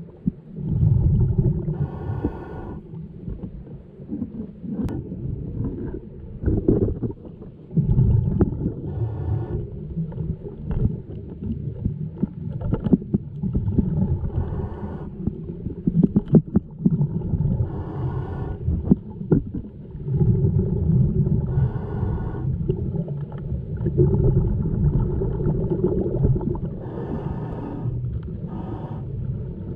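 Underwater sound of a scuba diver's regulator exhaust bubbling out in a burst every three to five seconds, over a steady low rumble of moving water. A few short clicks and knocks come through in the middle stretch.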